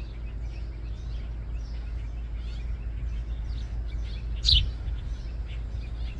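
House sparrows chirping: short, repeated chirps, with one loud falling chirp about four and a half seconds in, over a steady low background rumble.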